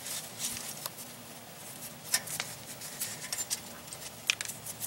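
Faint, scattered clicks and rustles of a hand feeling along a steel exhaust pipe and its stainless band clamp, with a few sharper ticks, one about two seconds in and one near the end.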